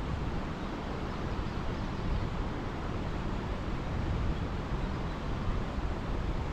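Steady outdoor noise: wind rumbling on the microphone over a constant hiss.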